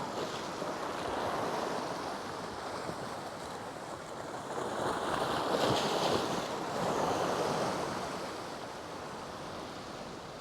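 Gulf surf washing in: a steady rushing of waves that swells to its loudest a little past the middle and then eases off.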